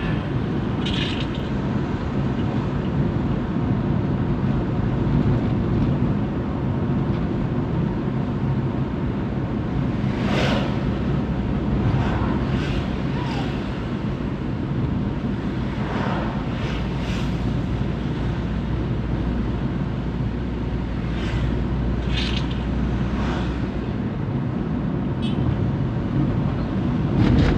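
2006 Suzuki APV's four-cylinder petrol engine running at a steady speed, with a few short higher-pitched sounds over it.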